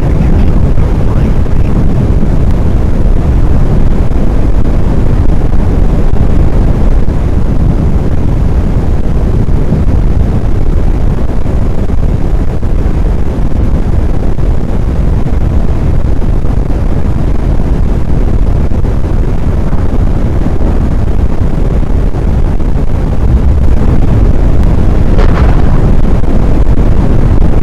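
Strong wind buffeting the microphone: a loud, steady low rumble that cuts off suddenly at the end.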